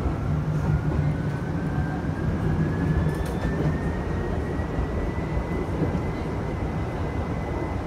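Chichibu Railway electric train heard from inside the driving cab as it pulls away, the motor whine rising slowly and steadily in pitch as it gathers speed, over a steady low rumble of the running gear.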